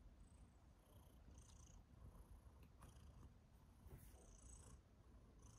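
Long-haired tabby cat purring, a faint, steady low rumble.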